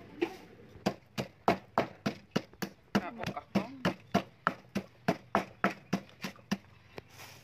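Wooden pestle pounding garlic and salt in a stone mortar, with steady strikes about three a second.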